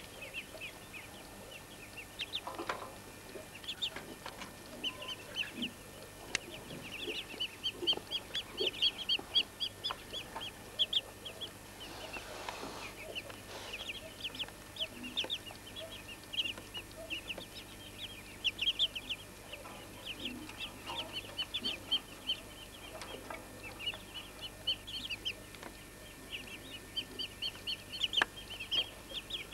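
Muscovy ducklings peeping: rapid runs of short, high peeps in bursts, going on almost without pause.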